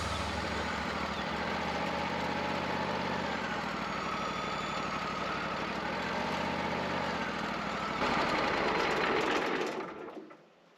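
Wood-Mizer LT40 portable sawmill running with a steady engine hum, a little louder about two-thirds of the way through, then fading away to silence near the end.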